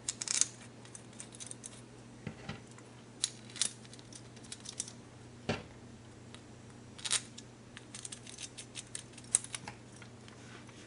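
Scattered small metallic clicks and taps: small screws being handled and started into a motorcycle carburetor's float bowl.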